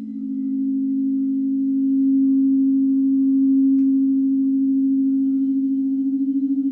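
Crystal singing bowls sounding one sustained low tone with faint higher overtones, swelling over the first couple of seconds. The tone pulses with a slow wobble at the start and again near the end, where two close pitches beat against each other.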